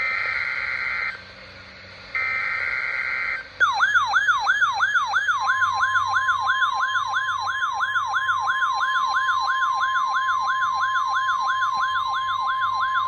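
NOAA Weather Radio alert tones for a required weekly test: two roughly one-second bursts of harsh buzzing SAME digital header data, then a warbling alarm of quick falling sweeps, about three a second, from a tone-activated weather radio receiver. A steady 1050 Hz warning tone joins about five seconds in.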